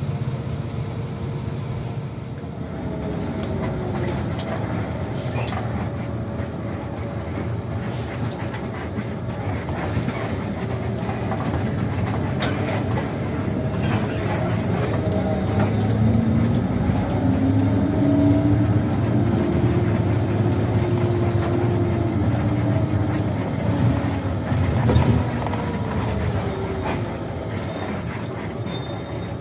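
Intercity bus on the move: steady engine and road rumble with short rattles and knocks. Around the middle the engine note rises and falls as the bus speeds up, and the running gets louder for a while.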